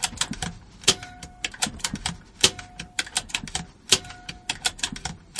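Air Arms S410 carbine PCP air rifle being cocked with its side lever and dry-fired again and again to empty the air from its reservoir. A sharp shot click comes about every one and a half seconds, with lighter lever clicks in between.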